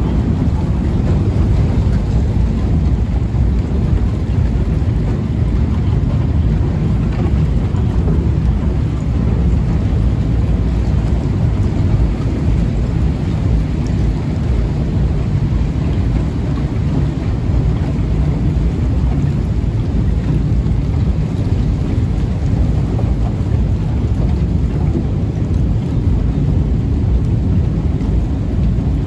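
Steady, loud low rumble aboard a moving cruise boat: wind buffeting the microphone over the boat's running noise.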